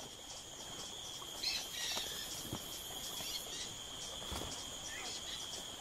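Insects trilling in a steady, high-pitched drone, with a few faint chirps about a second and a half in.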